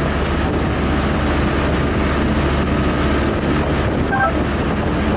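Passenger boat's engine running at a steady low drone while under way, with water noise and wind on the microphone.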